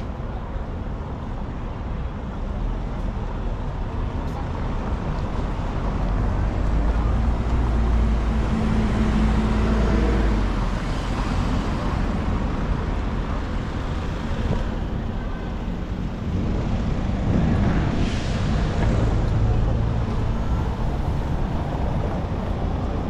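City road traffic: a steady low rumble of cars going by. The engine rumble swells twice as vehicles pass close, about a third of the way in and again about three quarters through.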